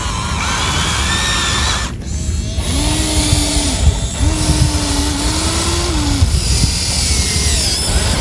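Electric motors of a Huina 1593 RC excavator whining in two runs, the first about 3 s in for a second and the second for about two seconds, each starting and stopping abruptly.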